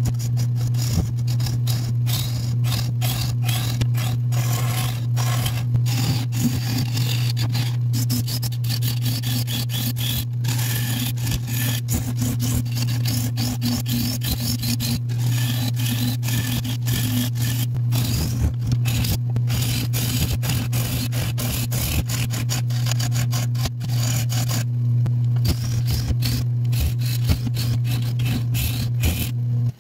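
Nova 3000 wood lathe running with a steady hum while a hand-held turning tool cuts into the inside of a spinning acacia bowl, a continuous rough scraping of wood being cut away.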